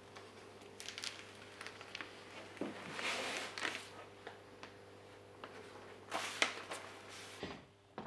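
Handling sounds at a lithography press: scattered clicks and knocks with two longer rustling scrapes, about 3 and 6 seconds in, over a steady low hum that cuts off near the end.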